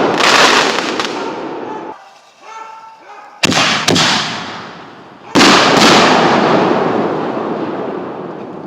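Consumer aerial fireworks bursting overhead: a loud bang near the start, two quick bangs about three and a half seconds in, and a last big bang about five seconds in, each followed by a long rolling echo that fades away over a few seconds.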